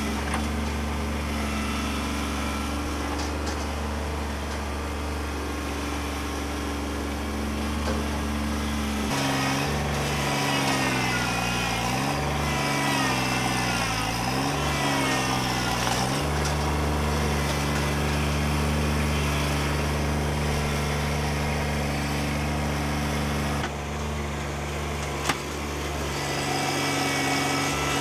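Kubota B2601 compact tractor's three-cylinder diesel engine running steadily while the front loader digs with a stump bucket. From about 9 to 16 seconds in, the engine note dips and rises repeatedly as it works, then settles back to a steady note. There is one sharp knock near the end.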